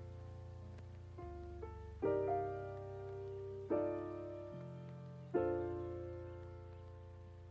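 Background music: slow piano chords, struck about every one and a half to two seconds and left to ring out over a soft bass.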